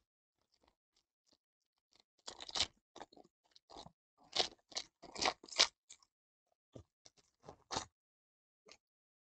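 Foil trading-card pack wrapper crinkling and tearing open in the hands. A run of crackly rustles comes between about two and six seconds in, then a few lighter crinkles.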